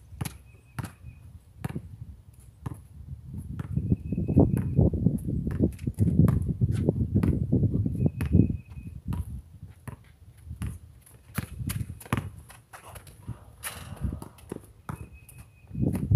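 Basketball bouncing on a concrete court and sneakers scuffing and stepping, heard as scattered sharp knocks throughout. A low rumbling noise swells through the middle, and a short high chirp recurs every few seconds.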